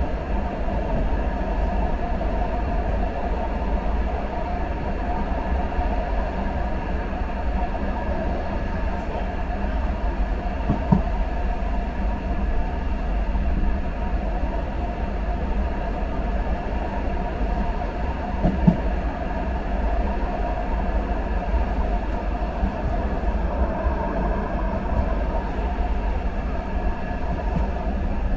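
German subway (U-Bahn) train running: a steady rumble with a band of whine from the running gear, broken by a couple of brief knocks.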